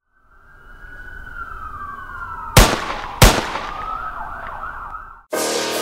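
Logo-intro sound effect: siren-like wailing tones fade in and glide downward, then waver. Two loud, sharp booming hits come about two-thirds of a second apart, and they are the loudest sounds. The effect cuts off abruptly, and music begins just before the end.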